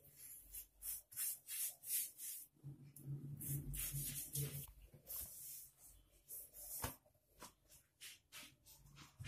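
Fingers rubbing a ghee and cornflour paste over a rolled dough disc: soft, repeated swishing strokes, roughly two a second. A brief low hum sounds a few seconds in.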